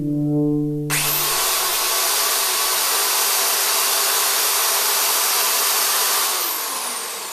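A held horn chord for about the first second, then a corded electric hair appliance held against a man's hair switches on abruptly and runs with a loud, steady motor and air noise, fading near the end.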